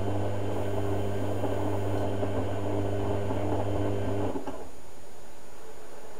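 Hotpoint Ultima WM72 washing machine's drum motor humming steadily as the drum turns during a boil wash, then cutting off about four seconds in as the drum stops.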